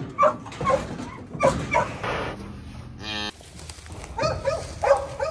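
Cur cow dogs barking, a string of short, sharp barks repeated through the moment.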